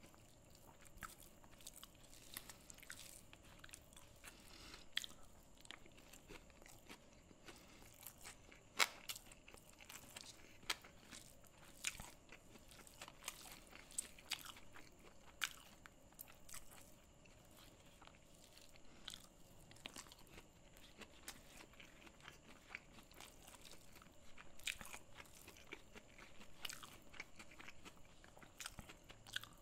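Close-miked chewing of a rice and curry meal, with irregular sharp crunches and clicks, one louder crunch about nine seconds in.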